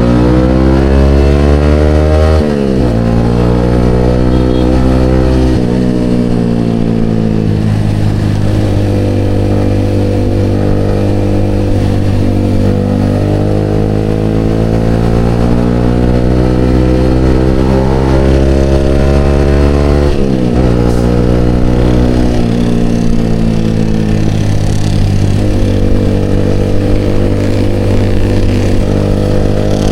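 Yamaha XSR motorcycle engine running through an aftermarket Vmax exhaust canister under way, its note climbing with speed. The pitch drops sharply at gear changes about two and a half seconds in and again about twenty seconds in.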